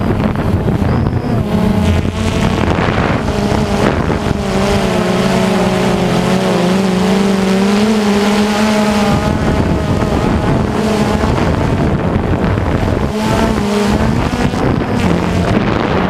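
DJI Phantom Vision 2+ quadcopter's motors and propellers buzzing up close, the pitch wavering as the motor speeds change, strongest in the middle and easing off about nine seconds in, with wind buffeting the microphone.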